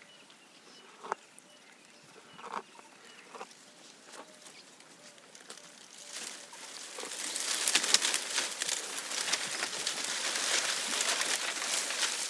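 A giraffe browsing: a few scattered snaps and crunches, then from about halfway a dense, loud crackling rustle of leafy branches and twigs being pulled and chewed.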